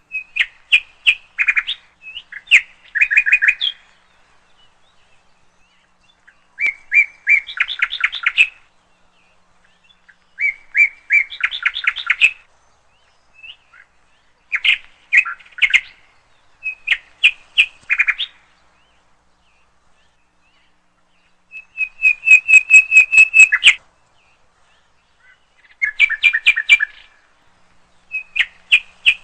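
Bird song: a phrase of rapid, high chirps, repeated about nine times with gaps of one to three seconds between phrases.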